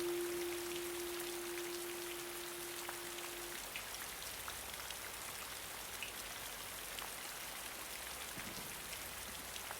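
Steady rain falling, with scattered individual drops ticking through the hiss. A single held musical note rings underneath and stops about three and a half seconds in, leaving only the rain.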